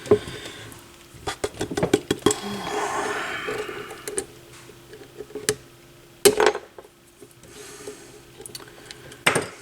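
Small metal hand tools clicking and clinking against a turntable's spindle retaining clip as it is pried at, with a brief scraping stretch and two louder knocks, one past the middle and one near the end. The clip is stuck and will not come off.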